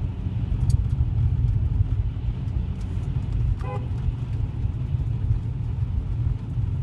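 A car in motion: a steady low rumble of engine and road noise. A brief pitched squeak sounds once, about three and a half seconds in.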